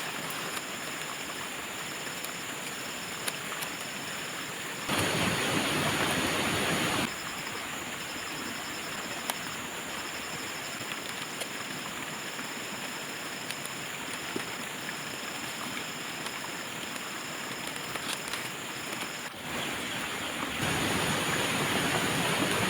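Outdoor rural ambience: a steady rushing noise, with a high insect trill that keeps breaking off and starting again. The noise jumps louder for about two seconds around five seconds in, and again near the end.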